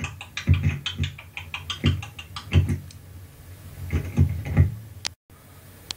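Beatboxing: low mouth kick-drum thumps mixed with sharp clicks in an uneven beat, cutting out for a moment near the end.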